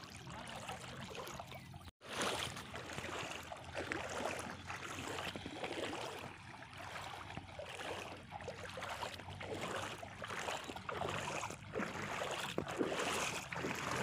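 Water sloshing and splashing around a person's legs as he wades step by step through shallow river water, with a brief dropout about two seconds in.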